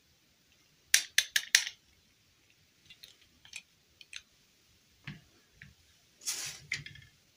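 Small plastic dolls and their clip-on plastic dresses handled by hand: a quick run of four sharp plastic clicks about a second in, a few lighter taps, and a short rustle ending in a clack near the end as the dolls are moved about a plastic crate.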